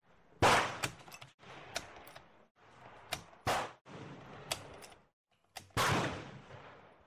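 Dutch M1871/88 Beaumont rifle firing 11mm black powder cartridges. There are two loud shots about five seconds apart, with a run of fainter sharp reports and clicks between them.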